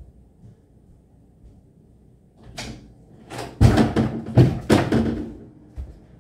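A room door being handled: faint thumps, then from about halfway a run of loud knocks and bangs as it is opened and shut.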